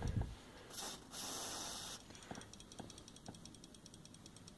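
Aerosol electrical contact cleaner sprayed through its straw into a seatbelt buckle's switch in two short bursts, the second about a second long. It is followed by a few faint clicks of the buckle's latch mechanism being worked, about two a second, to work the cleaner into a faulty buckle switch contact.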